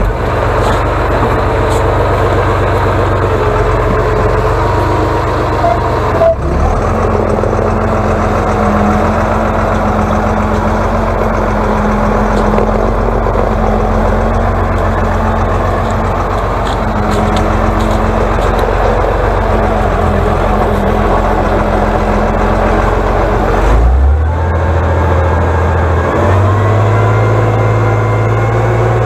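Atlas 1602 wheeled excavator's diesel engine running steadily as the machine drives and pushes snow with its front blade. The engine note changes abruptly about six seconds in and again near the end, then revs up.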